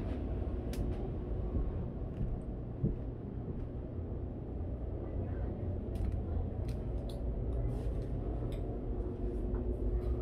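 Steady low rumble of background noise inside a small cabin, with a few light clicks and taps from about six seconds in.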